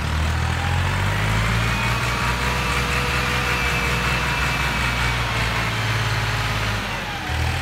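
Massey Ferguson tractor diesel engine running steadily, with a short dip about seven seconds in.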